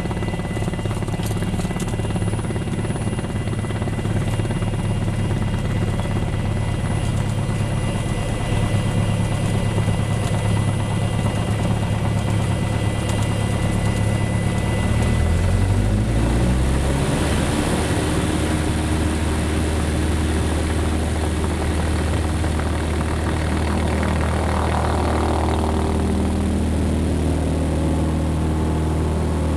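Cessna 172 Skyhawk's piston engine and propeller heard inside the cabin, running steadily at low power, then rising in pitch about halfway through as the throttle is opened to full takeoff power for the takeoff roll. A rush of air grows louder with it.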